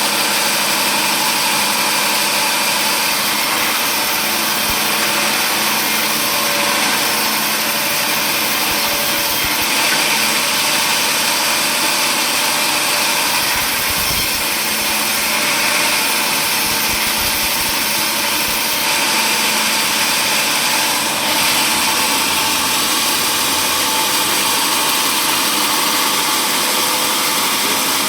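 Sawmill machinery running steadily, giving a loud, even mechanical noise with no breaks.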